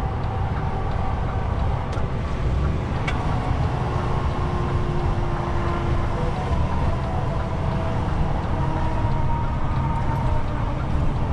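DAF truck's diesel engine and tyres heard from inside the cab while cruising at steady speed: a steady low rumble with a faint whine that drifts slowly in pitch.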